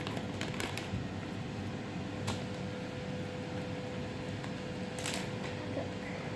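A plastic spoon stirring slime mix in a bowl, with soft scraping and a few light clicks of spoon against bowl, over a steady faint hum.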